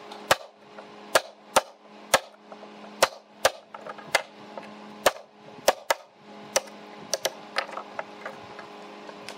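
Wooden mallet striking a wood chisel and the wooden workpiece as a slot is chopped into a board: sharp knocks at an uneven pace, about one or two a second. A steady low hum runs underneath.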